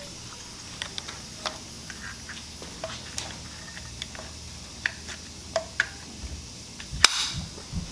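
Scattered light clicks and taps of small metal parts being handled as the timing-belt tensioner spring is fitted between the water pump and the tensioner on a BMW M20 engine, with one sharper click near the end.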